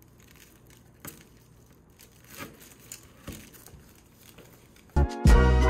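Clear plastic protective film crinkling and crackling faintly as it is tugged and peeled on a refrigerator door, with a few sharper crackles. About five seconds in, loud background music with a beat starts suddenly.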